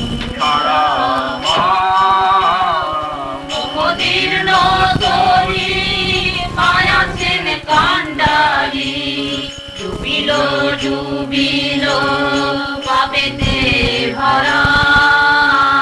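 Devotional kirtan: a Hindu devotional chant sung over a steady held drone, the melody rising and falling in long phrases.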